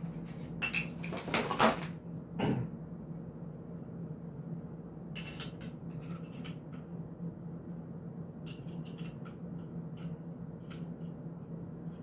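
Hands rustling and scraping a small cardboard box for the first couple of seconds, then scattered light clicks and taps as small camera quick-release parts are handled and fitted, over a steady low hum.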